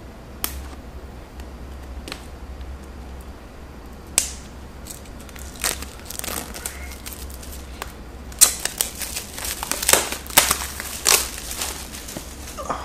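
Plastic shrink-wrap being peeled and crumpled off a small product box: scattered crinkles and sharp crackles, building to a dense stretch of crackling in the last few seconds.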